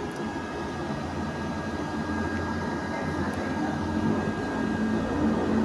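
A steady low mechanical hum and rumble with a thin steady whine over it, growing louder near the end.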